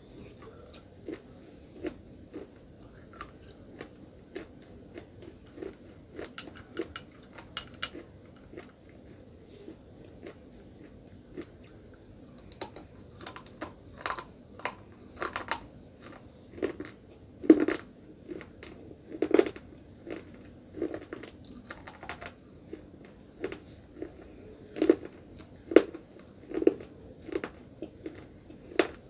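A person biting and chewing brittle white chalky sticks: a sharp crunch with each bite, then grinding chews, in irregular bursts. The loudest bites come in the second half.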